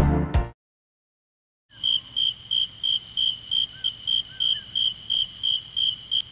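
Background music ends half a second in and, after about a second of silence, crickets chirp in a steady pulsing rhythm, about three chirps a second, over a continuous high insect trill. A few faint short chirps are heard in between.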